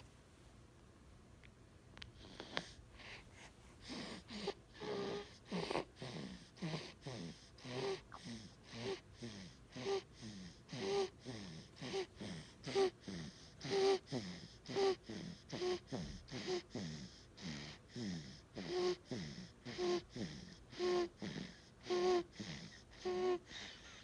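A newborn baby's short, wheezy breaths, each with a small voiced grunt, repeating about once a second after a quiet first two seconds.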